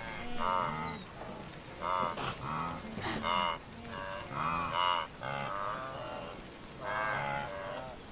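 Wildebeest herd calling: about a dozen short, nasal moaning calls, some overlapping, each arching up and down in pitch.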